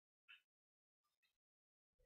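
Near silence, broken only by one faint short sound about a third of a second in.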